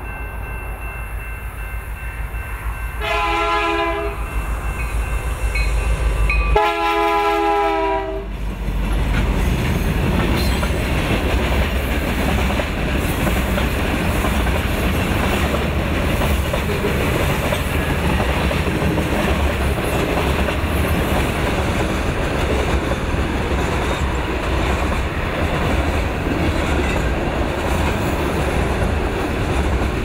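CN Rail diesel freight locomotive sounds its horn twice, a short blast about three seconds in and a longer one about six seconds in, over the low rumble of the approaching train. Then comes the steady rolling noise of the freight train's covered hopper cars going past on the rails.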